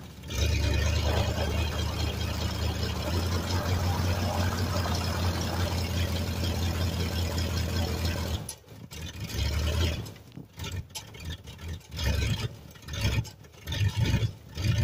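1990 Dodge W250 truck's engine running hard with its tractor-tired rear wheels spinning in snow without chains. About eight seconds in the steady sound drops off and turns choppy and uneven.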